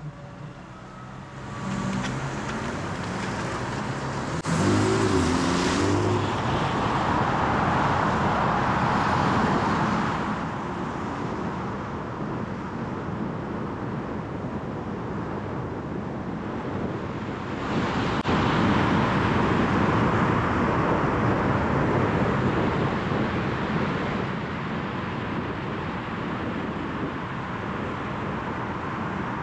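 Car driving in traffic: steady road and tyre noise that swells about five seconds in and again about eighteen seconds in.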